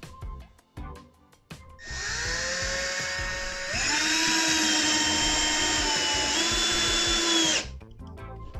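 Milwaukee M12BDD 12-volt drill driver driving a long wood screw into a block of wood. The motor whines up about two seconds in, speeds up and gets louder midway, and stops suddenly about a second before the end as the screw is driven home.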